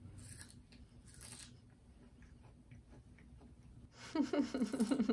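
A child chewing broccoli: faint crunching and small mouth clicks. A person's voice speaks briefly about four seconds in.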